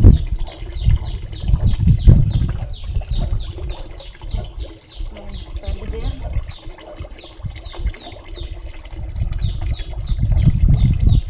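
Water splashing and sloshing as a dog is washed by hand, with low bumps and rumble of handling. Through it a bird repeats a short falling chirp about three times a second.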